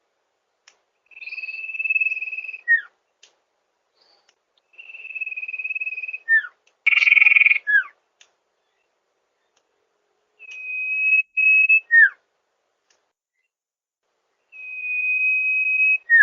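Sirtu bird song: a long, steady, high whistle ending in a short falling note, repeated four times with pauses between, and one rougher, noisier note about seven seconds in.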